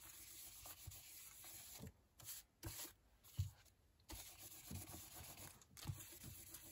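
Faint scrubbing of a blending brush working ink across embossed cardstock to distress it, broken by a few soft thumps, the loudest about halfway through.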